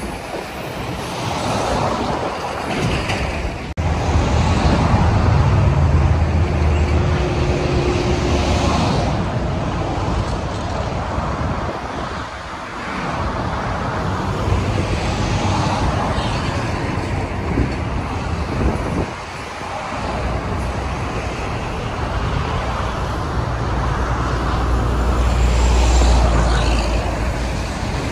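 Rumble of passing vehicles, a mix of a long passenger train running on the tracks and road-traffic-like noise. It swells loudest about four to nine seconds in and again near the end, with short dips between.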